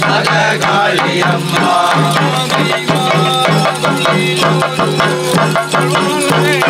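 Theyyam thottam pattu: men chanting the ritual song over continuous, rapid beating of a small hand drum.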